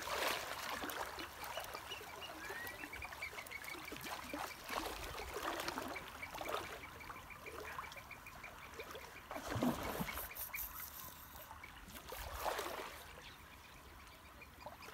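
Shallow water sloshing and splashing around wading anglers' legs, with a louder splash about two-thirds of the way through. A faint, even, high-pitched ticking runs underneath.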